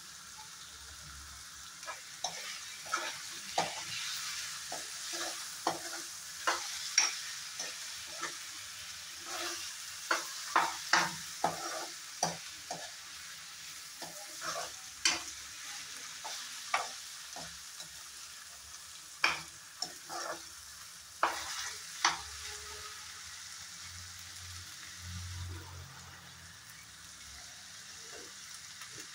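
Bottle gourd pieces sizzling in oil in a non-stick kadai while a steel spoon stirs them, scraping and tapping against the pan many times. The stirring stops about three-quarters of the way through, leaving the sizzle alone.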